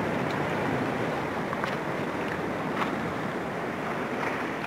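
Sea surf washing and foaming over shoreline rocks: a steady rushing hiss with a couple of faint clicks.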